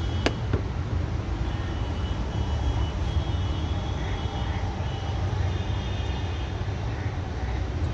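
Skoda Superb petrol engine running with a steady low rumble while it misfires on cylinder 1 (fault code P0301). A sharp click sounds near the start.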